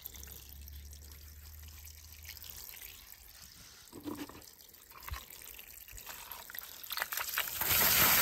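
Water: faint trickling and a few drips or small splashes, then a louder steady rush of running water near the end.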